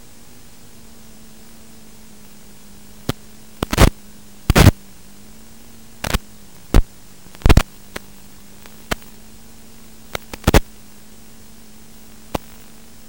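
Steady hiss of radio static with a faint low hum, broken by a dozen or so short, loud crackles of static between about three and eleven seconds in. This is the audio channel of an analog FPV video link from a 600 mW Immersion transmitter.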